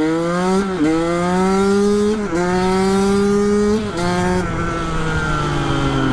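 KTM 125 SX single-cylinder two-stroke engine pulling hard through the gears: the engine note climbs and drops sharply at three quick upshifts in the first four seconds, then slowly falls in pitch.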